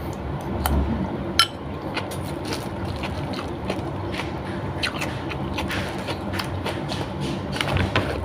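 Close-up eating sounds: chewing and mouth noises with small scattered clicks and knocks from hands and utensils on glass dishes, one sharper clink about a second and a half in, over a steady background hum.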